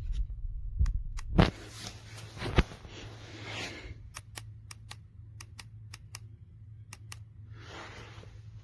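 A series of sharp clicks with rustling handling noise over a low steady hum: two louder clicks in the first three seconds, then a run of lighter, evenly spaced clicks.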